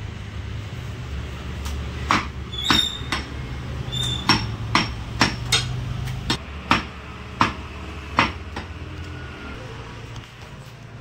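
Butcher's cleaver chopping goat meat on a wooden stump block: about ten sharp chops at uneven intervals, starting about two seconds in and ending about two thirds of the way through, over a steady low hum.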